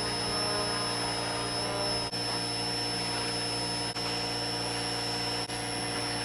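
A machine running steadily, with a constant high-pitched whine over a low hum, dipping briefly three times.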